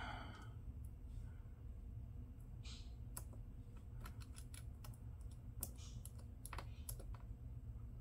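Faint, irregular small clicks and taps of a precision screwdriver and tiny screws against a laptop LCD panel's metal mounting tabs as the screen screws are started, over a steady low hum.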